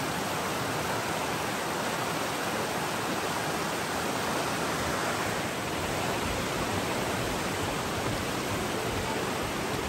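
Shallow, rocky river rushing over stones: a steady, even rush of flowing water.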